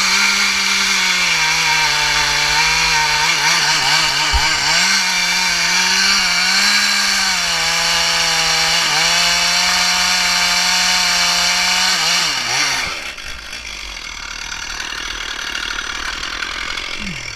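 Chainsaw running at high revs through a cut, its pitch sagging briefly a few times. About twelve seconds in, the throttle is let off, the revs drop away and it goes much quieter.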